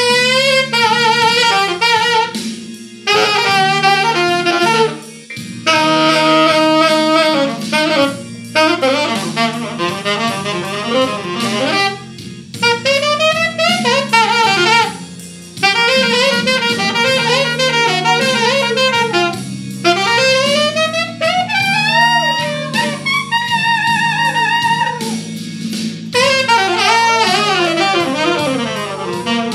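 Tenor saxophone playing a jazzy melody while a dog howls along, its wavering, sliding voice weaving in among the sax notes.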